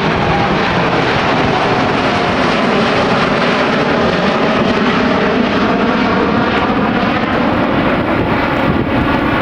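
Boeing 747's jet engines running loudly and steadily.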